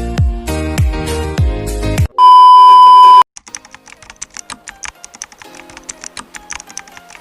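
Background music with a beat and deep falling bass notes, broken off about two seconds in by a loud, steady single-pitched beep lasting about a second. Quieter, sparse plinking music follows.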